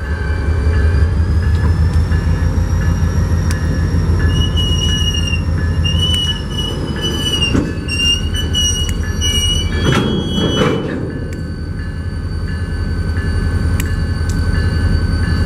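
New England Central Railroad train rolling past with a steady low rumble. A high, wavering wheel squeal runs from about four to nine seconds in, and a short rush of noise comes around ten seconds.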